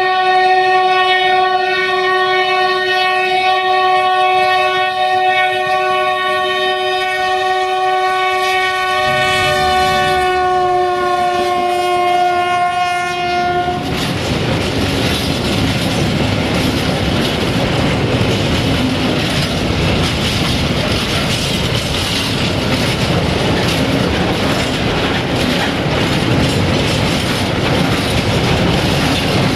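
BR232 'Ludmilla' diesel locomotive sounding its horn in one long held chord for about thirteen seconds, the pitch sagging slightly near the end as it passes. The horn then stops and the freight wagons roll past with a steady rumble and clickety-clack of wheels over the rail joints.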